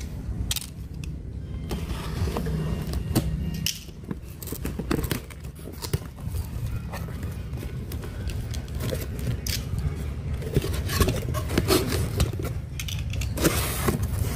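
Packing tape being peeled off a cardboard box and the box flaps pulled open by hand: irregular ripping, scraping and crackling of tape and cardboard, over a steady low hum.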